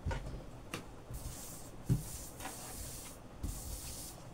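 Items, among them a pair of scissors, being handled and put down on a laminate tabletop: a few knocks, the loudest about two seconds in, with swishes of things sliding and rubbing across the surface between them.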